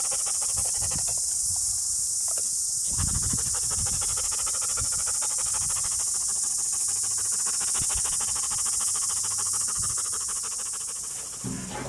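Steady high-pitched buzz of a summer insect chorus, with scuffing and rustling in dry leaf litter and a few low thumps as rip gear is pulled off a lying dog.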